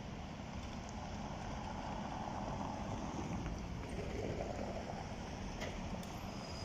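Mercedes-Benz Citaro city bus approaching at low speed over cobbles. Its engine and tyres make a steady noise that grows a little louder as it nears.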